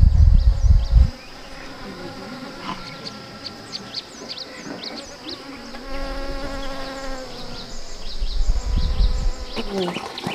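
A bee buzzing close by among flowers, loudest around the middle, over a steady high insect tone and many short high chirps of small birds. A loud low rumble opens the sound and cuts off about a second in.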